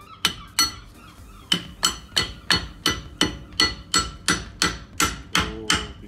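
Hammer striking a pin punch to drive a stubborn brake pad retaining pin out of an old Opel Manta front disc brake caliper. Two sharp metallic ringing blows come near the start, then a steady run of about three blows a second from a second and a half in.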